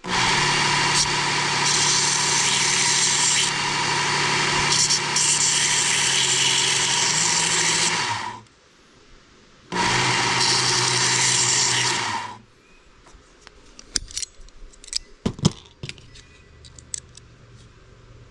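Belt grinder grinding down a steel Leatherman multitool part, in a run of about eight seconds and then, after a short break, a second pass of about two and a half seconds. Light clicks of handling the part follow.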